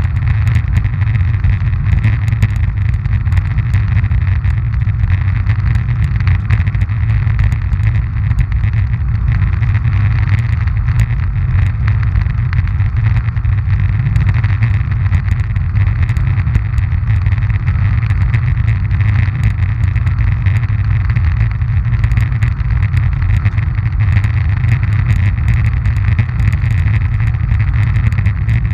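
Roller ski wheels rolling over coarse asphalt, a steady loud rumble picked up by a camera mounted on the ski, with faint scattered ticks throughout.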